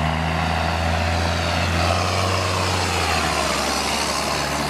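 Large John Deere tractor driving past on a paved road, its diesel engine running steadily with tyre noise, the pitch falling as it passes close by.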